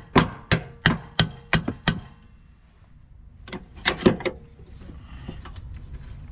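Wooden-handled hammer striking the steel mounting bolt of a 2013 GMC Acadia's rear shock to drive it out: a run of about six sharp metal strikes, roughly three a second, with a ringing tone. After a pause, a second quick burst of four or five strikes comes about three and a half seconds in.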